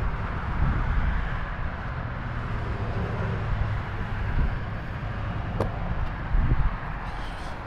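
Steady low outdoor background rumble, with a short click about five and a half seconds in.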